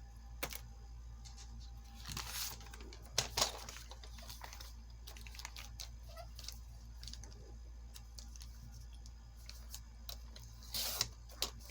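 Paper pages and a ruler being handled while lines are measured and marked: scattered short rustles and small clicks over a low steady hum.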